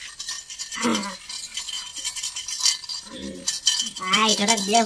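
A steel plate clinking as it is handled, with short bursts of voices and laughter that grow loudest in the last second.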